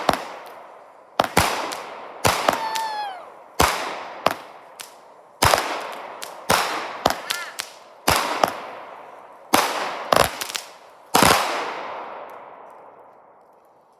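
A multi-shot firework going off: sharp bangs about once a second, some in quick pairs, each trailing off in a long echo, with a brief whistling glide twice. The last bang comes near the end and fades away.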